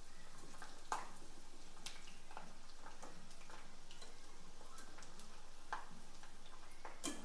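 Peanuts and garlic frying in hot oil, a faint steady sizzle broken by scattered sharp pops and crackles every second or so.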